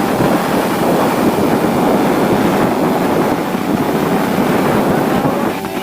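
Yamaha RX-King two-stroke motorcycle being ridden, its engine running steadily under heavy wind rushing over the microphone, with a brief dip in level near the end.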